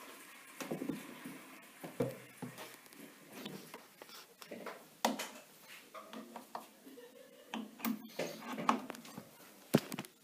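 Handling noises from a bread maker being set up: irregular knocks and clicks with some rustling as its lid is shut and the mains plug is pushed into a wall socket, the sharpest clicks near the end.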